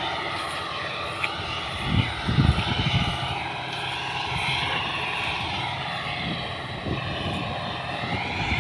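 Combine harvester's diesel engine droning steadily as it harvests, its pitch wavering slightly. Low buffeting hits the microphone around two to three seconds in.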